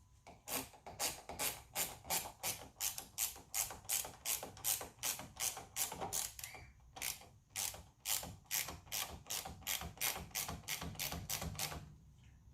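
A 10 mm ratchet clicking steadily, about three to four clicks a second, as it tightens the nut on a car battery's negative terminal clamp. There is a brief pause around the middle, and the clicking stops shortly before the end.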